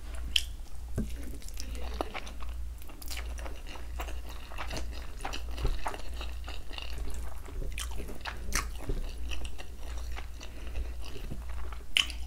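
Close-up mouth sounds of eating rice and palm butter by hand: chewing with irregular wet smacks and clicks, over a low steady hum.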